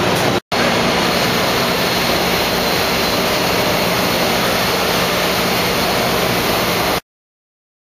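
Steady loud din of a busy exhibition hall, an even roar with no distinct voices. It drops out for a split second about half a second in and cuts off abruptly near the end.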